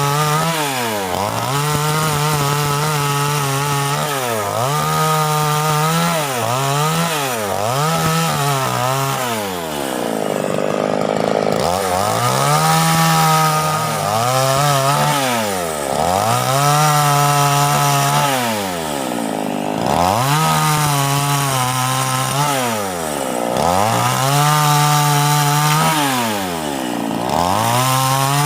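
Two-stroke chainsaw engine revved again and again: it climbs to high speed, holds for a second or two, then drops back toward idle, about every three seconds.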